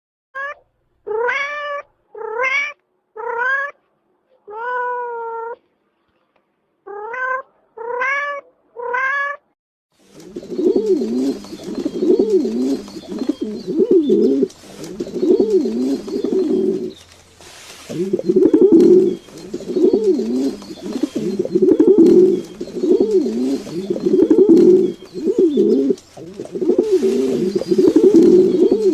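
About eight short pitched animal calls with gaps between them, then, from about a third of the way in, a continuous low calling that repeats roughly once a second.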